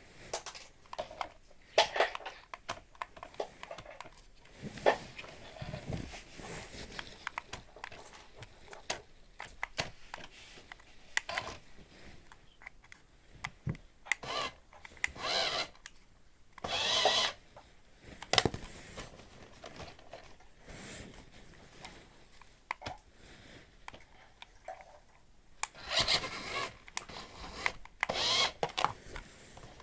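Toy RC car's small electric motor whirring in short bursts amid scattered knocks and clatter. The longest burst, about a second, comes about halfway through, with another busy cluster near the end.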